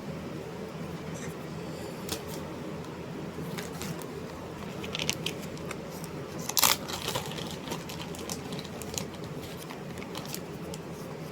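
Steady room hum with a scattering of short clicks and crinkling rustles; the sharpest click comes about two-thirds of the way through.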